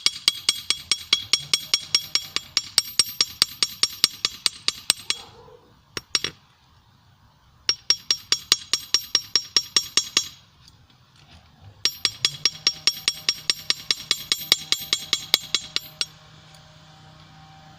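Hand hammer striking hot steel on an anvil, rapid ringing blows at about five a second in three runs with short pauses between them. The blows stop a couple of seconds before the end, leaving a faint steady hum.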